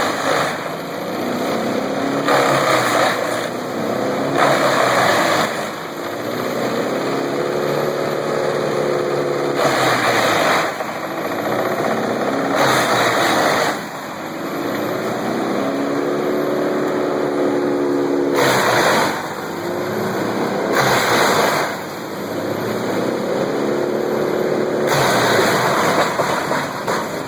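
Wood chipper running, its engine note rising and falling in slow swells, with a noisy burst about a second long every few seconds as wood is fed through and chipped.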